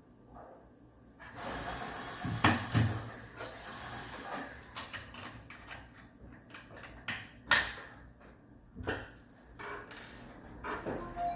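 Clicks and knocks of hard parts being handled, over a rustling noise that starts about a second in; the sharpest knocks come at about two and a half seconds and again near the middle.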